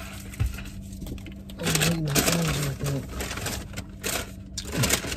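Paper food wrappers and a takeout bag crinkling and rustling as food is unwrapped, loudest in the middle and again near the end, with a short hummed or murmured voice in the middle.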